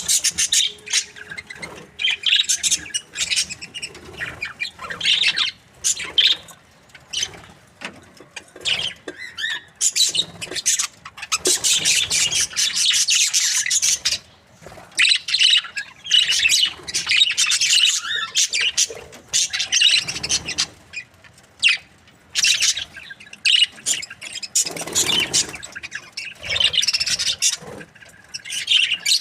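A group of budgerigars chirping and chattering, with occasional squawks, in busy high-pitched bouts broken by brief lulls.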